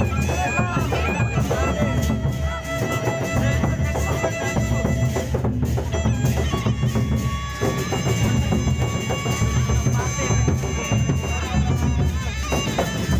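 Gendang beleq ensemble playing: the large drums beat a steady pulsing rhythm with gongs and cymbals, under long held steady tones.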